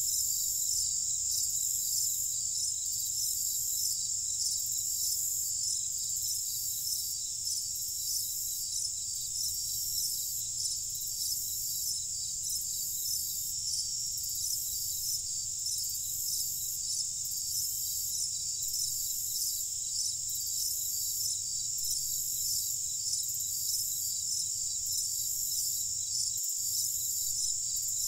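Chorus of crickets chirping steadily, a dense high trill that pulses at an even rate.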